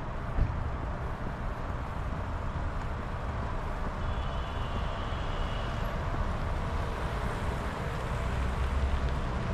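Car traffic passing slowly along the street: a steady low rumble of engines and tyres. There is a single thump about half a second in, and a faint high whine for about two seconds in the middle.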